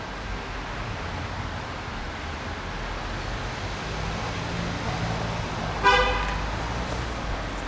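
A vehicle horn toots once, briefly, about six seconds in, over the low rumble of a passing vehicle.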